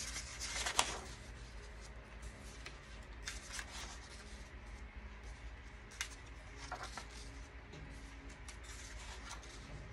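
Sheets of printer paper rustling and sliding as a stack of printed pages is leafed through by hand, with several short, soft page flips.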